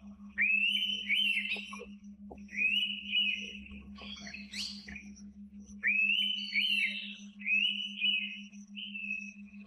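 Indian pitta giving its clear whistled calls, five phrases of about a second each, with pauses between them and a longer gap around the middle. A steady low hum runs underneath.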